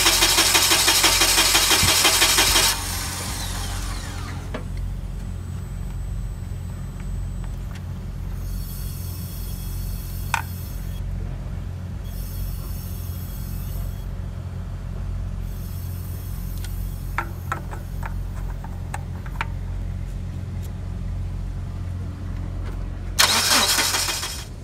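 Forklift's propane (LP) engine idling with a steady low hum while propane hisses out of the valve cover: a loud hiss for the first few seconds, fainter hissing on and off in the middle, and a loud hiss again near the end. The leak is the sign of a failed LP fuel pressure shutoff valve.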